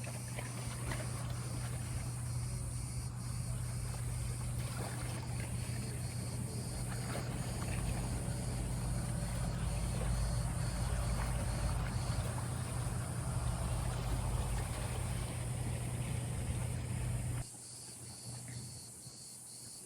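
Motorboat engine running steadily with a low, even hum over water noise; it cuts off suddenly a couple of seconds before the end, leaving a much quieter background.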